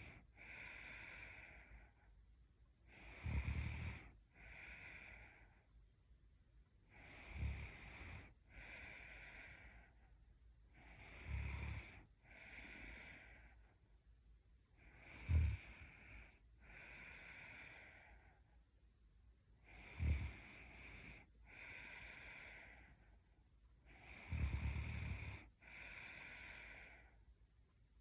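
Young woman snoring in her sleep: a short rattling snore followed a second later by a softer breath, repeating evenly about every four seconds, six times.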